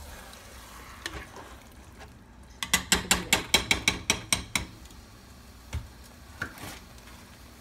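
A metal spoon stirring thick vegetable stew in a nonstick pot, with a quick run of about a dozen clicks of the spoon against the pot, about six a second, starting near the middle.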